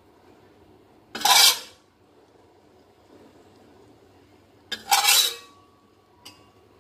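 A spatula scraping against cookware twice, two short rasping scrapes about three seconds apart as the stir-fry is scooped out, with a light click near the end.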